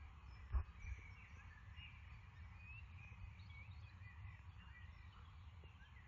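Wind rumbling on the microphone in a meadow, with one low bump about half a second in, while small birds chirp and sing faintly in the background.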